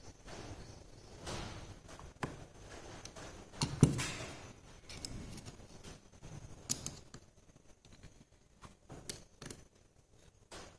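Irregular metallic clicks and clinks of a hand wrench and screwdriver working on a small steel gear differential model as a fastener on its frame is turned, with one louder knock about four seconds in.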